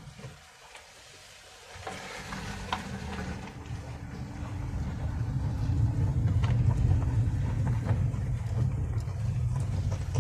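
Car engine and tyre noise heard from inside the cabin: a low rumble that is faint at first, then builds from about two seconds in as the car speeds up, and holds steady.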